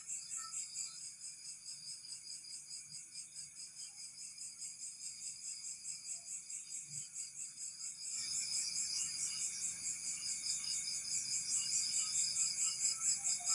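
Crickets chirping in a steady, rhythmic high-pitched pulse, several chirps a second, growing louder about eight seconds in.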